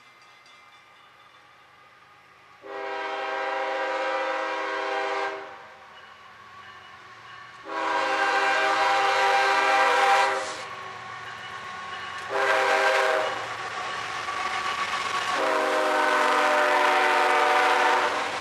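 Multi-note air horn of a CSX freight locomotive sounding the grade-crossing signal: two long blasts, a short one, then a long one, the blasts getting louder as the train nears. Between and under the blasts, the locomotives' diesel engines and wheels are heard coming past.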